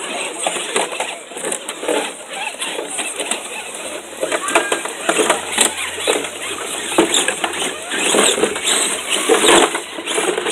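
Scale RC rock crawlers driving through a muddy, water-filled ditch, with knocks and clatter as they climb over rocks. People talk in the background.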